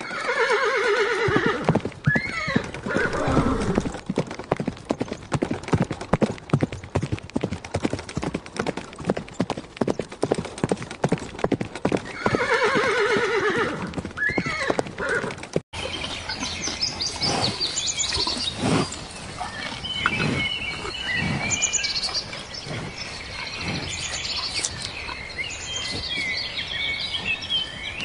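A horse neighing, followed by a fast patter of hoofbeats and a second neigh. After a sudden cut about halfway through, higher chirping calls and scattered knocks take over.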